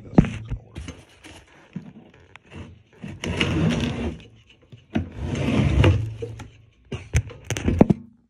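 Handling noise: a few sharp knocks near the start and again near the end, and two long scraping rustles about a second each in the middle, as the phone is moved against fabric.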